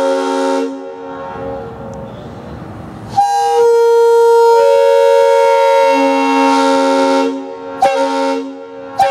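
Multi-chime locomotive air horn blown on compressed air, sounding a chord of several steady notes. A short blast at the start, then a long blast from about three seconds in lasting about four seconds, its notes shifting about halfway through, then two short blasts near the end.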